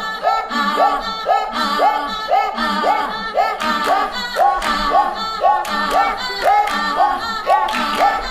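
Women's polyphonic vocal group singing a rhythmic a cappella chant: short upward-swooping whoops about twice a second over a lower sung part, with sharp percussive clicks in time.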